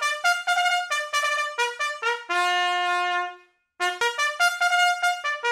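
Solo trumpet playing a fanfare-like melody: a run of short notes leading to one held note, then, after a brief pause, a fresh run of short notes.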